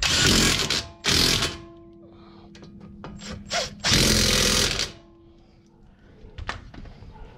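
Half-inch drive ratchet with a 17 mm socket tightening the brake caliper mounting bracket bolts: three bursts of rapid ratchet clicking, with a single sharp knock later on.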